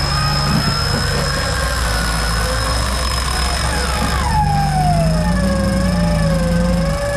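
Vintage flat-fender Jeep engine working under load as it climbs out of a deep mud rut. A low engine note rises and wavers over the second half, and over it a higher whine slides up and down, falling steeply about four seconds in.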